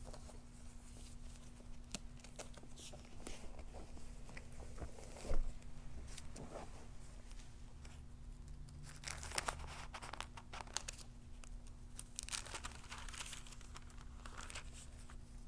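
Faint rustling of thin Bible pages being leafed through and loose sheets of paper handled, in scattered short rustles that come thicker in the second half. One soft thump about five seconds in is the loudest sound.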